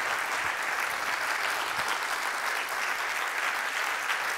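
A large seated audience applauding steadily: dense, even hand-clapping at the close of a story.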